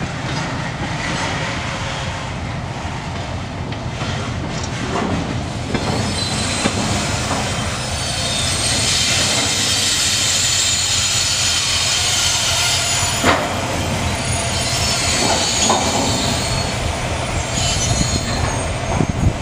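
Empty container flatcars rolling slowly past behind a TGM6D diesel-hydraulic shunting locomotive. The wheels squeal high and shrill, loudest in the middle, and knock sharply over the rail joints and points, about two-thirds of the way in and again near the end. Under it runs the steady hum of the locomotive's diesel engine.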